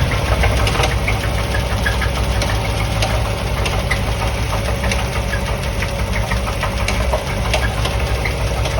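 1988 Corvette's V8 idling steadily with an irregular knocking and ticking from the engine, a noise whose source the owner cannot find.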